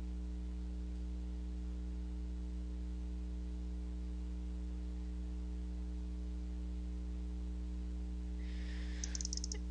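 Steady electrical hum with several overtones, unchanging throughout, with a faint short hiss and a few tiny clicks near the end.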